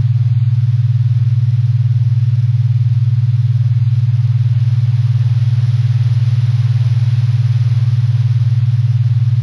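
A loud, steady low drone with a fast, even throb, unchanging throughout: a synthesized ambient drone soundtrack.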